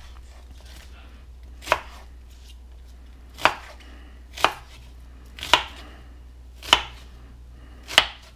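Kitchen knife chopping an onion on a cutting board: six slow, separate chops roughly a second apart.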